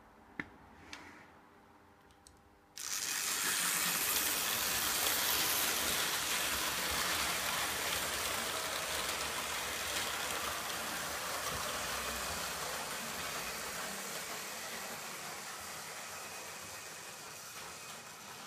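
Märklin H0 F800 model steam locomotive running on metal track: a steady whirring rattle of motor and wheels that starts suddenly about three seconds in and slowly fades. A few light clicks come before it.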